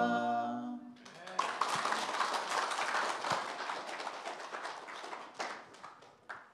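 An a cappella vocal quartet holds and releases its final chord, then the congregation applauds for a few seconds, the clapping thinning out to a few scattered claps near the end.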